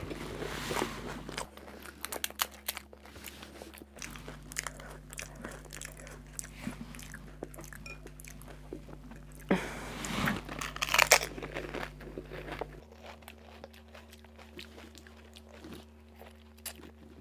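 Close-up eating sounds: crisp fried fuchka shells crunching and being chewed, in many short crackles. The crunching is loudest about ten to eleven seconds in.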